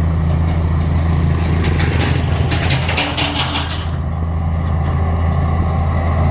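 Heavy construction machine's diesel engine running steadily with a deep drone. From about a second and a half in until nearly four seconds, a burst of rapid clicking and rattling rises over it.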